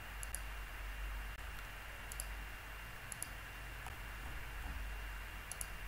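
Computer mouse clicking four times, each click a quick double tick, over a low steady hum.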